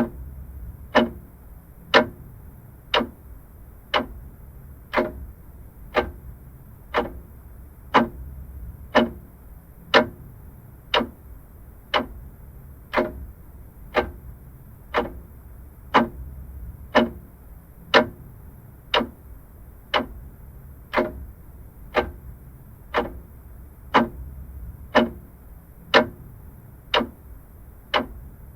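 Vintage mechanical clock ticking steadily, about one tick a second.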